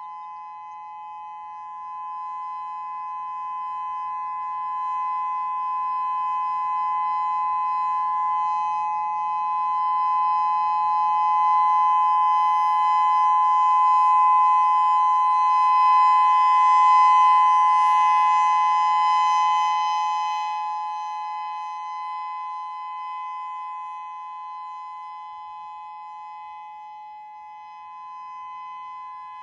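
Whelen WPS-3000 electronic warning siren with 16 speaker drivers, sounding the steady full-alert signal: two fixed tones held together with no rise and fall in pitch. It grows louder over about fifteen seconds, then fades again.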